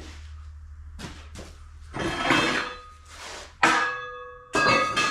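Steel pieces knocked and set down against metal: several separate clanks, the one about three and a half seconds in ringing out with a clear metallic tone for about a second.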